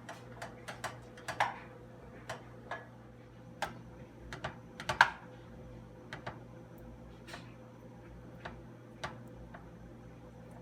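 A utensil clicking and tapping against a saucepan as butter is stirred while it melts. The light clicks come irregularly, with a louder cluster about five seconds in, over a faint steady hum.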